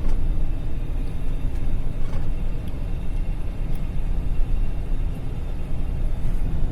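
Steady low rumble of a GAZelle van driving, its engine and road noise heard from inside the cab.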